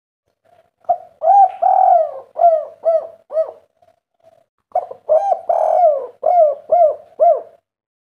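Spotted dove singing its 'kuk 3' cooing song: two phrases about a second apart, each a couple of short coos, one longer coo that slides down, then three short coos.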